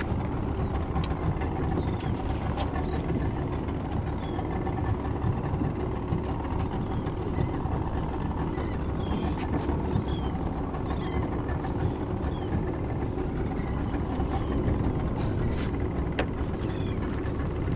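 A small fishing boat's motor runs steadily at trolling speed under wind and water noise, with faint short high chirps now and then.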